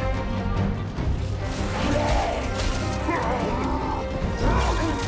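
Orchestral film score under battle sound effects, with crashing impacts starting about a second and a half in.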